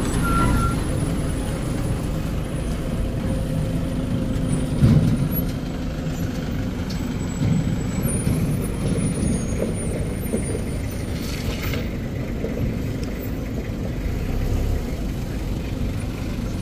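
Engines of a small diesel dump truck and then a Toyota minibus driving past close by on an uphill road, a steady low rumble. A sharp knock comes about five seconds in and a short hiss around eleven seconds.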